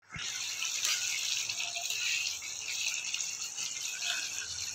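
Hot water poured into a kadai of fried onion-tomato masala, the gravy hissing and sizzling steadily.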